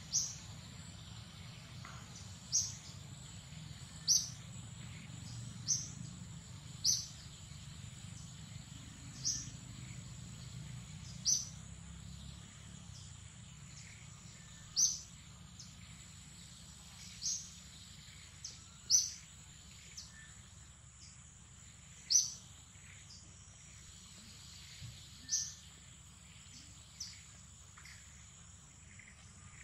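A bird repeating a short, high call that falls in pitch, every one to three seconds, over a steady high-pitched insect drone. A low rumble underneath fades out about twelve seconds in.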